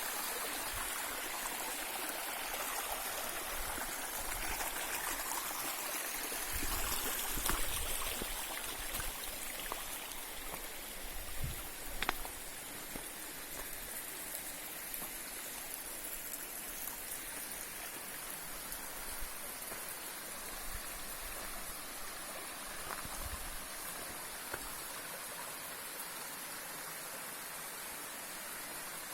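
Mountain stream rushing steadily over rocks, with a few soft low knocks and one sharp click about twelve seconds in.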